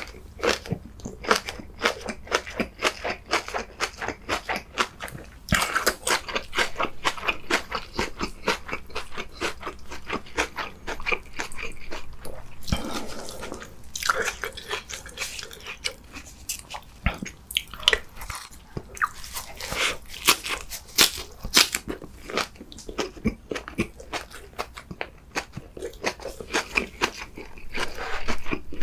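Close-miked chewing of napa cabbage kimchi: a long run of crisp crunches, one bite after another, with open-mouthed mouth sounds between.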